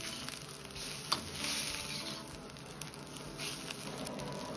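Oyster mushrooms being pushed around with a metal ladle in hot water in a wok, coming back to the boil: a steady hissing, sizzling water sound. The ladle clinks once against the wok about a second in.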